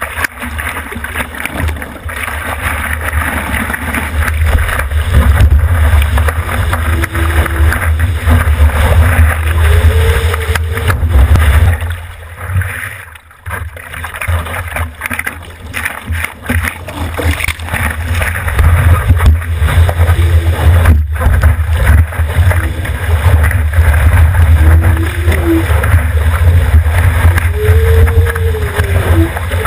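Water sloshing and splashing around a GoPro mounted on the nose of a surfboard, under a heavy low rumble of water and wind buffeting the camera housing. It drops away briefly about twelve seconds in, then returns.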